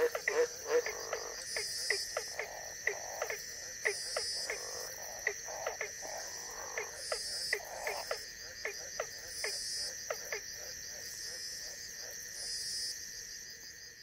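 Australian green tree frogs croaking in a quick series, then ornate burrowing frogs giving short sharp calls about two or three a second, over a steady drone of night insects. The calls stop a few seconds before the end and the sound fades.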